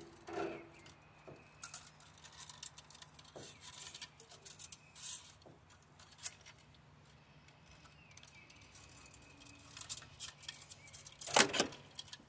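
Baling wire being worked off with hand tools: scattered light metallic clicks and scrapes, with one louder sharp clank about eleven seconds in.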